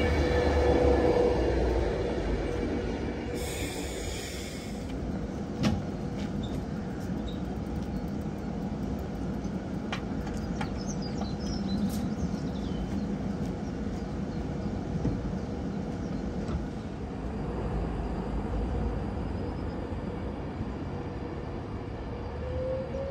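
Avanti West Coast Class 390 Pendolino electric trains: one runs past and fades away in the first few seconds, then a unit stands at the platform with a steady low hum. Near the end a rising motor whine comes in as it pulls away.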